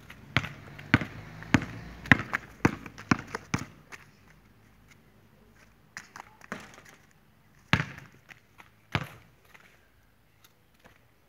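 Basketball bouncing on a concrete court. A run of quick bounces comes about two to three a second over the first few seconds, then a few single bounces a second or so apart.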